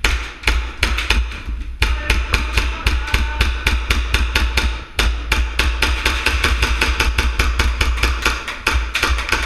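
Airsoft guns firing: a quick, uneven string of sharp clacks, several a second, with short breaks about two seconds in and again about five seconds in. A steady low rumble runs underneath.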